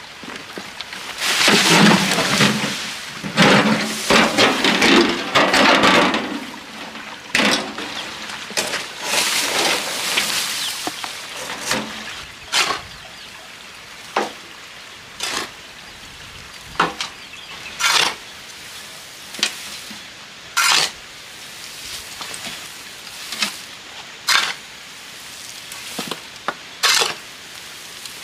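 Dry weeds and brush rustling and crunching as a wheelbarrow load is tipped out, then a shovel scraping across concrete in short separate strokes about once a second as debris is scooped up.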